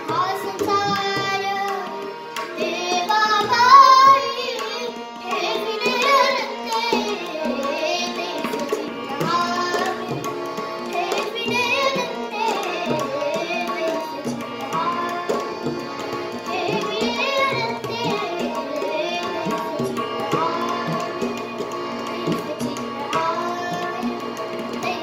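A girl singing an abhang in raga Bhimpalasi, with harmonium holding steady notes under her voice and tabla accompaniment.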